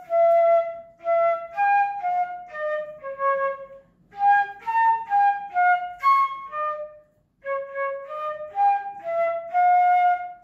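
Solo transverse flute playing a melody, one note at a time, in three phrases with short pauses for breath. The last note is held and then stops.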